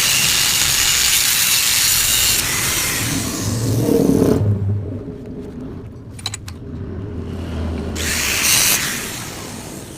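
Power tool cutting into the steel of a Yamaha RX-King exhaust muffler to open it up for gutting. It cuts steadily and loudly, then winds down about four seconds in to a low hum, with a second short burst of cutting near the end.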